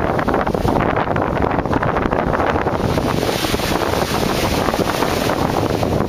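Wind buffeting the microphone: a steady, loud rushing noise over open water, growing hissier about halfway through.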